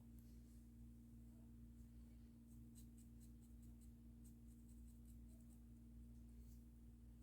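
Faint, crisp crackling of hair rubbed and scrunched between fingers during a head massage, coming in scattered clusters of small ticks from about two and a half seconds in, over a steady low hum.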